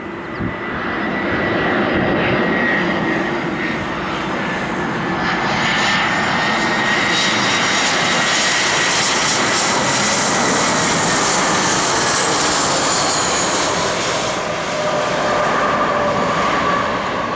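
An easyJet Airbus A319's twin jet engines on final approach and landing, passing close: a loud, steady jet rumble with a high fan whine that slowly falls in pitch. It swells about two seconds in, dips briefly, and fades near the end as the aircraft touches down.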